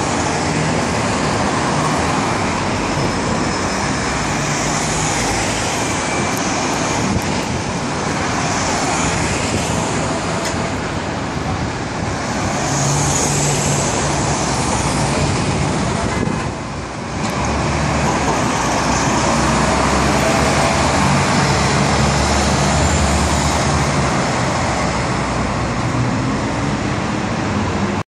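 City street traffic: buses and cars driving past, with bus engines coming and going through the steady traffic noise.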